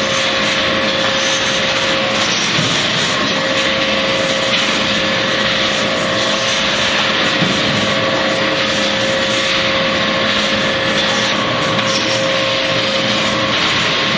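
Factory processing machinery running, a steady loud noise with a constant hum under it.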